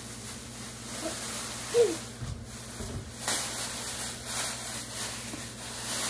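Thin plastic grocery bags rustling and crinkling as groceries are pulled out of them, with a couple of low thumps of items set down on the floor a little after two seconds in.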